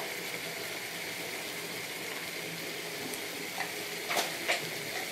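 Potatoes in a thick spiced onion gravy sizzling steadily in a frying pan on the stove, the water cooked off. A few short clicks near the end.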